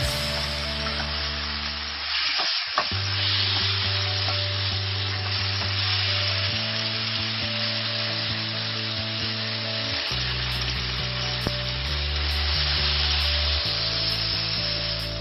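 Food sizzling as it fries in a hot pan, with a few utensil clicks against the pan about two and a half seconds in. Soft background music with slow, held chords plays underneath.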